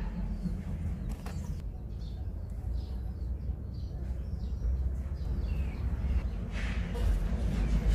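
Faint bird chirps over a steady low rumble, with a brief scraping rush near the end.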